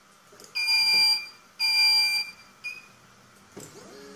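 Two long electronic beeps from the Flying Bear LaserMan laser engraver's buzzer, each just over half a second, followed by a short chirp. About three and a half seconds in, the gantry's stepper motors start whining in shifting pitches as the laser head moves off to begin the engraving job.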